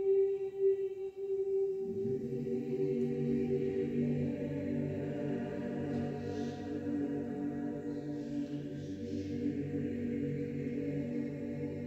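Mixed chamber choir singing unaccompanied: a high held note, then about two seconds in lower voices come in beneath it with long sustained chords.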